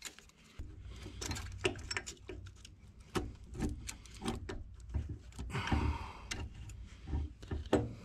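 Light metallic clicks, taps and clunks of an ARB air-locker differential carrier, with its ring gear, bearings and shims, being worked by hand into a Dana 30 axle housing. The parts do not seat and keep knocking against the case. A low steady rumble lies underneath.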